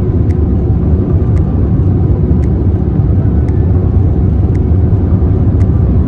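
Road noise inside a car's cabin at highway speed: a loud, steady low rumble of tyres and engine, with faint ticks about once a second.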